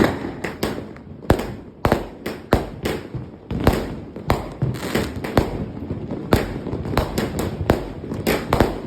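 Consumer fireworks on a finale board going off in rapid, irregular succession: sharp bangs and cracks, several a second, with no gap in the volley.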